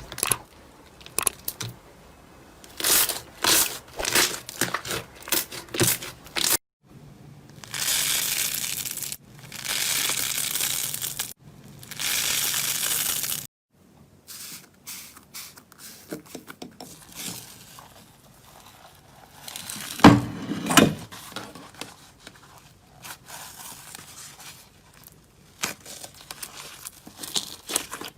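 Slime being squeezed, stretched and pressed by hand, giving crackling, crinkly tearing sounds. Quick clusters of pops come first, then three spells of steady crackling in the middle, then scattered small pops with one louder press about twenty seconds in.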